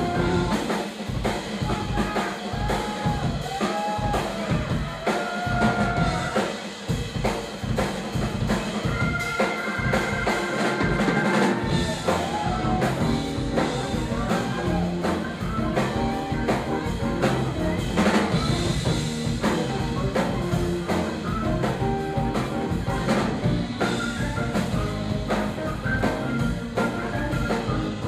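A live instrumental funk-jazz band, with Hammond organ, electric guitar, bass guitar and drum kit, playing a groove with steady drum hits. The low end fills out about twelve seconds in.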